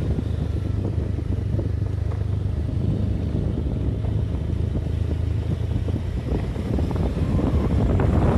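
A moving road vehicle giving a steady low engine drone with road and wind noise.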